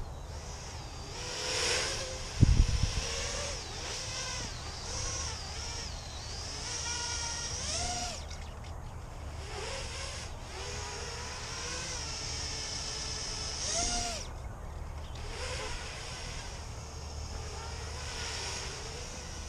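Small 210-size FPV quadcopter's brushless motors and propellers whining, the pitch rising and falling as the throttle changes. A sharp low thump about two and a half seconds in is the loudest moment.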